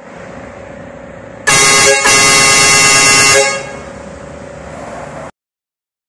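VIAIR twin chrome-trumpet air horn sounding about a second and a half in: a loud, chord-like blast of several steady tones, broken once by a split-second gap, lasting just under two seconds in all. A steady hum runs before and after it.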